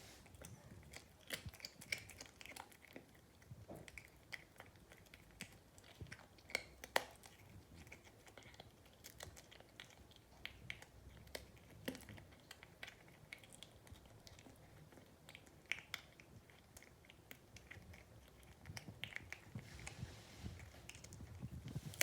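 A cat chewing, a long run of small irregular crunches and clicks.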